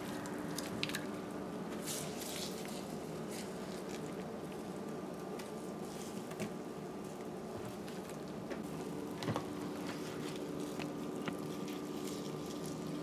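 Soaked soya chunks being squeezed out by hand: faint wet squishing and water dripping back into the bowl, with a few small clicks.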